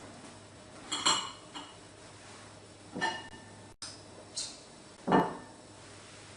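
A fork clinking against a dish several times while eating, with ringing clinks about one and three seconds in and a duller, louder knock about five seconds in.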